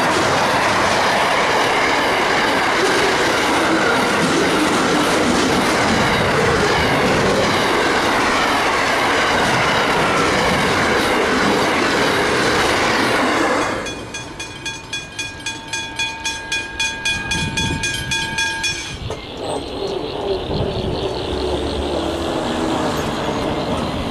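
Container freight train passing close: a loud, steady rumble of wheels on rail with some wheel squeal. It drops off suddenly about 14 seconds in as the last wagon passes, then gives way to rhythmic clacking of the wheels that fades as the train moves away.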